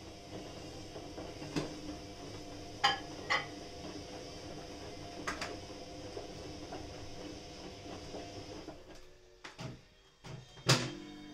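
A steady hum with a few short clicks and knocks scattered through it, and one louder sharp knock near the end.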